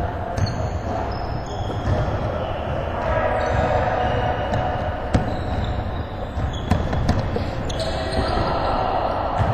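Basketball game on an indoor hardwood court: the ball bouncing, with a few sharper thuds, sneaker squeaks and shuffling footsteps over a steady hall rumble, in a large gym.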